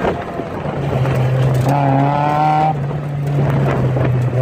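Car engine pulling hard through an autocross course, its note stepping down a little about a second in. Tyres squeal for about a second midway as the car corners.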